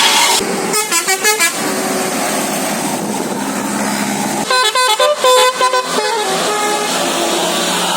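Bus 'telolet' musical air horn playing two quick runs of short stepping notes, a brief one about a second in and a longer one about halfway through, over steady traffic and engine noise.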